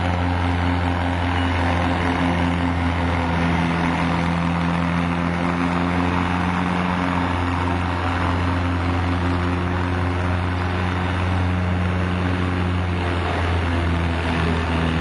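Farm tractor's engine running hard under full load, dragging a weight-transfer sled down the pulling track, a steady loud drone that holds its pitch with only small wavers.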